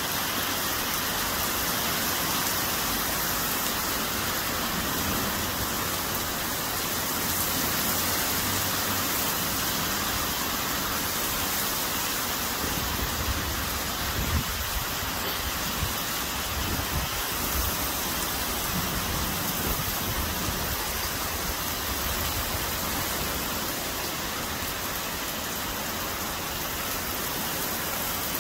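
Heavy rain pouring down in a steady hiss, with low gusty rumbles and a few small thumps a little past the middle.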